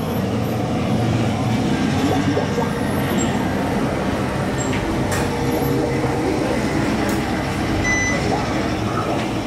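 Steady din of a crowded indoor queue: indistinct overlapping chatter over a constant low rumble.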